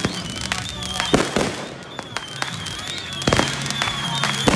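Consumer aerial fireworks (cakes and mortars) going off: several sharp bangs at uneven gaps, two close together just over a second in, one about three seconds in and another near the end.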